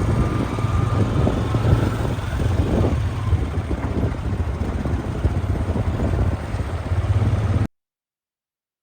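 A vehicle engine running steadily, with rough knocking and rattling noise over it; the sound cuts off abruptly about a second before the end, leaving silence.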